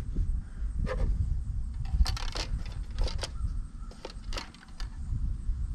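A series of light, sharp metallic clicks and clinks over a steady low rumble, from handling the oil bottle and filler parts while topping up the engine oil on an old John Deere lawn tractor.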